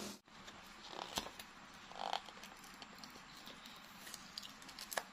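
Faint, scattered small clicks and rustles of hands handling a camera box and its packaging, with a brief faint squeak about two seconds in.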